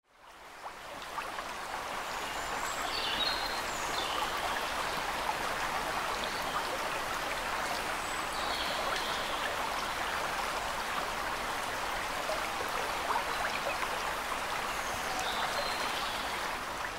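Steady rush of water pouring through a large river weir, the river running high after heavy rain. It fades in over the first second or two.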